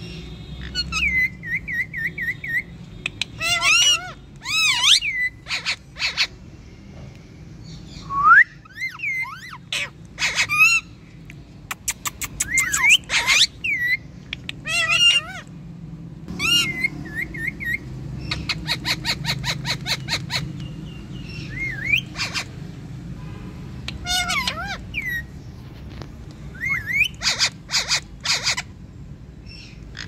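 Two Indian ringneck parrots (rose-ringed parakeets) calling back and forth, with quick whistled and chirping calls that slide up and down in pitch, broken by clusters of short, harsh screeches.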